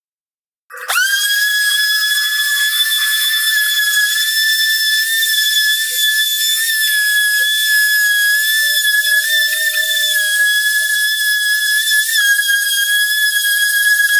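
Electric power sander switched on, its motor spinning up within a moment and then running with a steady, high-pitched whine while it sands the tabletop.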